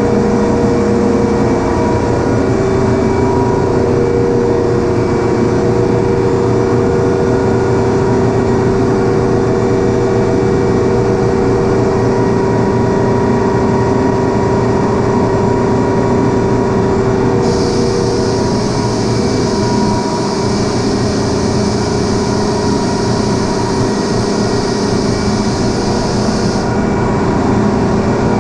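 Industrial ammonia refrigeration machinery running steadily: a loud, even hum with several constant tones over a low rumble. About two-thirds of the way in, a high hiss joins for roughly nine seconds, then cuts off suddenly.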